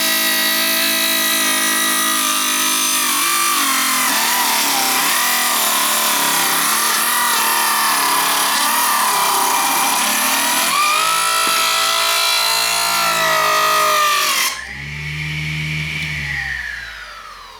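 A TruePower 4-inch mini electric table saw cutting quarter-inch poplar, its weak motor struggling under the load, its pitch sagging and wavering. About fourteen seconds in the sound drops, and the motor slows with a falling pitch.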